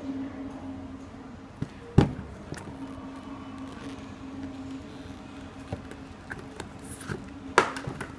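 Handling noise from a leather sneaker and its cardboard insert being flexed and turned in the hands: scattered light taps and rubs, with two sharper knocks, one about two seconds in and one near the end. A steady low hum runs underneath.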